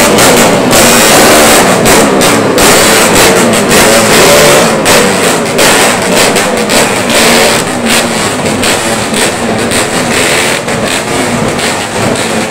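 A convoy of motorcycles, two-stroke bikes among them, passing close, one after another, with engines revving up and down, very loud throughout.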